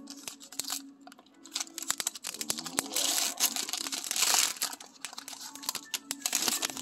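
Foil wrapper of a Pokémon TCG Brilliant Stars booster pack being torn open and crumpled by hand: a run of crinkling and crackling, densest about three seconds in and again near the end.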